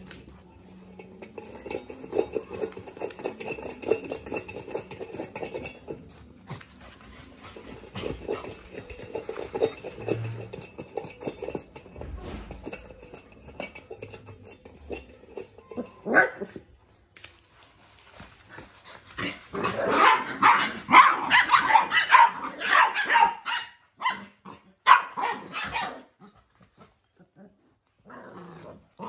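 Two puppies play-fighting: low scuffling through the first half, then from about two-thirds of the way in a fast run of high, sharp puppy yaps and barks that stops shortly before the end.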